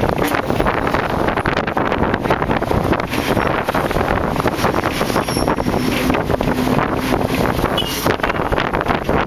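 Wind buffeting the microphone over the steady road and engine noise of a moving vehicle.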